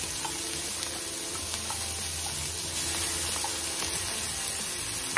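Butter and olive oil sizzling steadily in a stainless steel sauté pan as diced bell peppers are tipped in from a bowl and pushed out with a spatula, with a few light clicks and taps.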